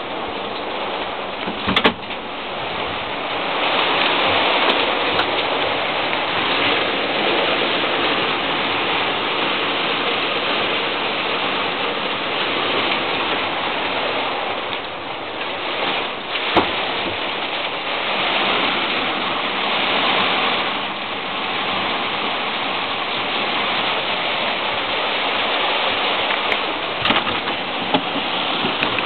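Heavy rain pouring down in a steady rush during a thunderstorm downpour, with a few short knocks.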